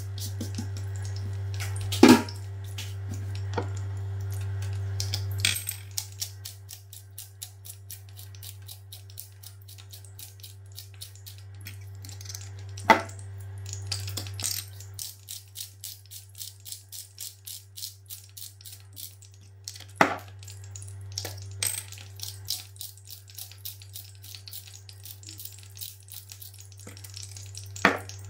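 Spice grinder twisted by hand over a bowl, grinding seasoning in long runs of rapid, even clicks, twice. Four sharp knocks on the counter stand out, with a steady low hum underneath.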